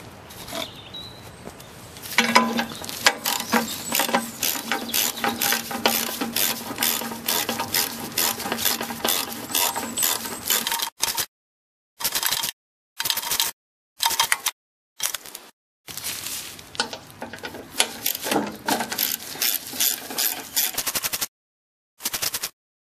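Socket ratchet clicking in fast, even runs, about five clicks a second, as it undoes the fuel-tank mounting bolts on a Briggs & Stratton lawn mower engine. The clicking is broken by several short silences about halfway through.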